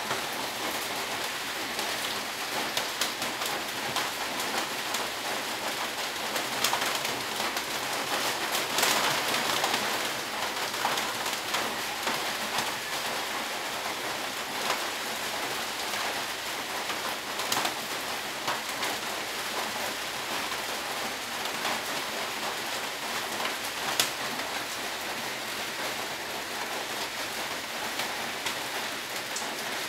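Steady hiss from a gas burner heating an aluminium stovetop moka pot, with scattered sharp ticks, as the water heats and the coffee starts to rise up the pot's central column.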